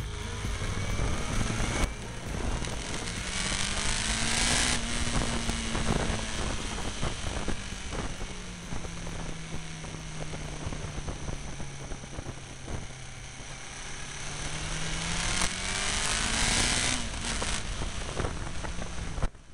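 Motorcycle engine and wind noise heard from a bike-mounted camera while riding. The engine note eases down, holds low, then climbs again. Rushes of wind on the microphone come about four seconds in and again near the end.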